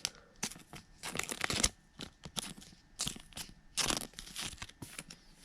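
Plastic packaging crinkling as baseball trading cards are handled, in a string of short, irregular rustles.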